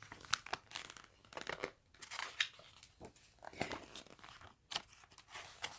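Faint, scattered rustling and crinkling of paper as the pages of a picture book are handled and turned.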